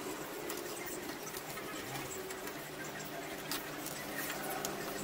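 Scattered light clicks and scrapes of pliers and metal antenna parts being handled on a wooden table, over a steady background hum.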